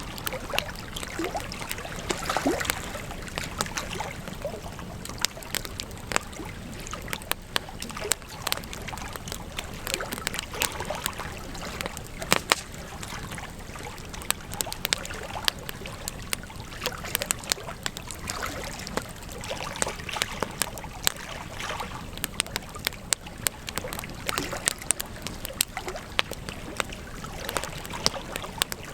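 Wood campfire burning: a steady rush of flames with frequent sharp crackles and pops.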